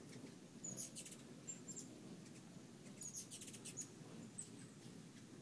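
Hummingbirds giving high, squeaky chattering chips: two short rapid runs, about a second in and again around three seconds in, with a few thin single chips between.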